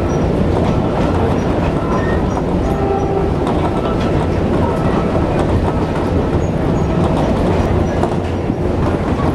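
Philippine National Railways train running on the tracks: a steady, loud rumble that goes on without a break.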